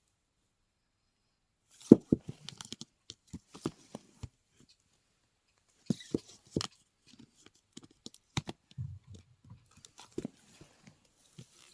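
Scattered clicks, taps and rustling of things being handled close up, in short clusters about two, six and ten seconds in.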